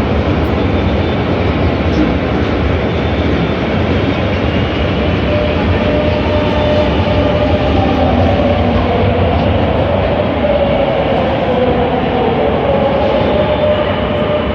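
Madrid Metro train moving alongside the platform: a loud, steady rumble and rush of noise, with a wavering whine that comes in about five seconds in and holds to the end.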